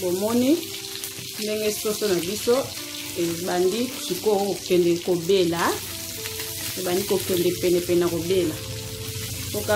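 Chicken pieces frying and sizzling in a pan, stirred and turned with a wooden spatula. Over the sizzle runs a melody of held and gliding notes.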